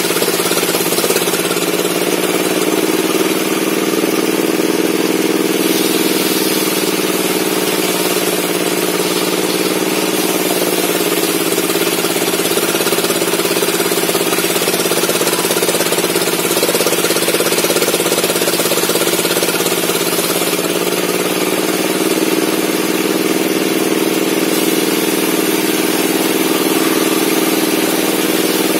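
Circular table saw running steadily with a loud, even hum. Its pitch sags briefly about ten seconds in and again about twenty seconds in.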